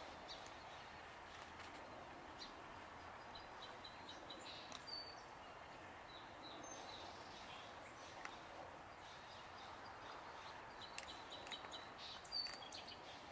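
Faint outdoor background hum with scattered short, high chirps of small birds.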